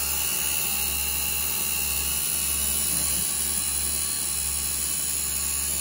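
Taig CNC mill running a 1/16-inch end mill through light cleanup passes in the corners of an aluminium pocket: a steady whine with a high hiss.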